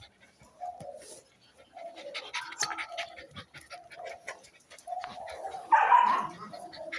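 Puppies playing and wrestling, giving short whines and yips over a patter of small clicks, with one louder yelp about six seconds in.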